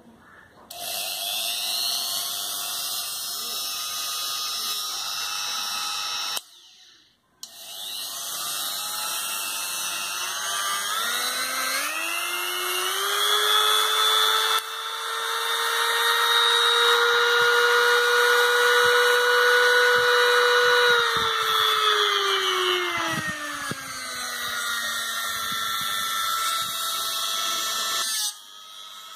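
Agni A1537 mini rotary grinder with a grinding stone fitted, running free with no load. It is switched on about a second in, off for a moment near the six-second mark, then back on. Its whine rises in pitch as it speeds up, holds at high speed for several seconds, falls back to a lower speed and stops shortly before the end.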